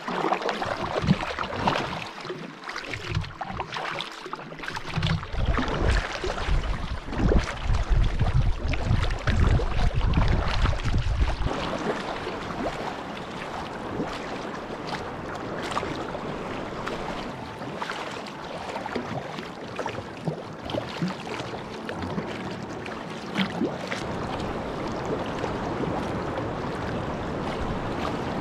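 A sea kayak being paddled: a double-bladed paddle dips and splashes again and again, and water laps against the hull in choppy water. About five seconds in, a low rumble like wind buffeting the microphone lasts for several seconds.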